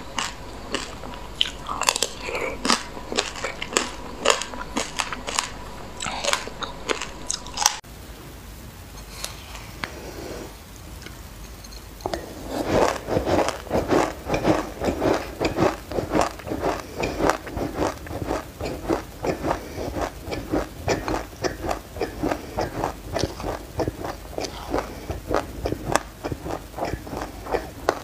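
Close-up chewing of a mouthful of sesame seeds with passionfruit pulp: rapid, crisp little crunches and clicks. The crunching thins out about eight seconds in and comes back dense and louder about four seconds later.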